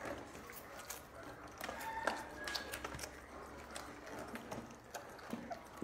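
Puppies and a kitten sucking at bottle nipples: a busy, irregular run of wet smacking clicks, with a couple of short squeaks about two seconds in.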